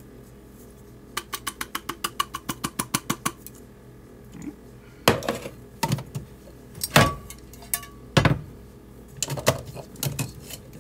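Metal herb grinder clicking against the mouth of a glass jar in a quick, even run of light taps for about two seconds as ground cannabis is knocked out of it, followed by several louder separate knocks and clinks as the grinder parts are set down.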